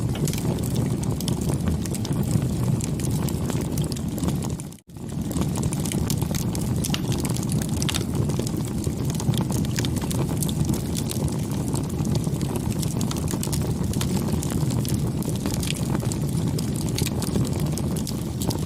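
Campfire burning, with irregular crackles and pops over a steady low rush of flame. The sound drops out for a split second about five seconds in.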